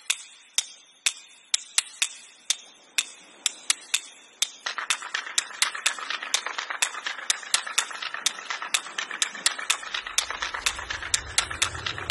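A ticking build-up: sharp, evenly spaced clock-like ticks that speed up from about two a second to several a second. A rising hum joins about a third of the way in and a low rumble swells near the end, leading into music.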